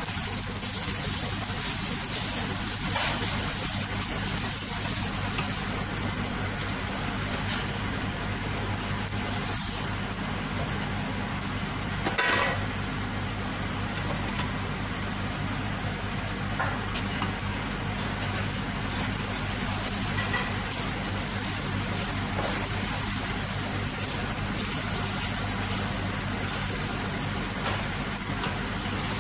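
Rice and browned vermicelli toasting in butter and oil in a stainless steel pot: a faint sizzle and the scrape of a wooden spatula stirring the grains, over a steady low hum. A single knock about twelve seconds in.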